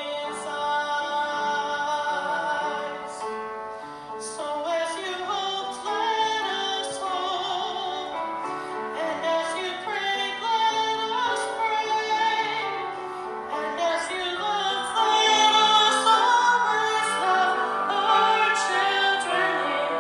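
A woman singing a slow solo song, holding long notes with vibrato over instrumental accompaniment; it swells louder about three-quarters of the way through.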